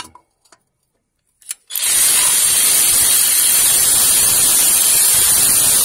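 Cordless impact wrench running in one long, steady burst of about four and a half seconds, starting about two seconds in, as it works a half-inch bolt on the engine's front timing cover. A single click right at the start.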